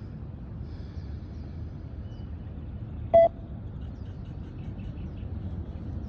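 A single short electronic beep from the beep test recording, about three seconds in, signalling the time to reach the line on a shuttle run. It sounds over a steady low outdoor rumble, with faint bird chirps.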